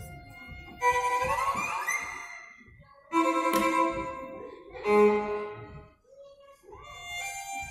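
Music led by a violin, playing short phrases with some sliding notes and a brief break about six seconds in.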